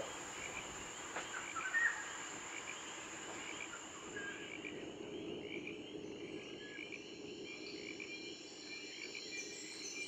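Wetland night chorus: insects keep up a steady high-pitched whine with scattered chirps, and a low croaking frog chorus comes in about four seconds in. A brief louder call sounds near two seconds in.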